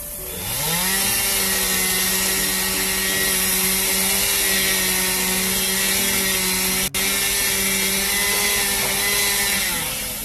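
Two-stroke chainsaw revved up to full throttle, held at a steady high pitch for about eight seconds and then let off just before the end, with a brief dropout in the sound about seven seconds in.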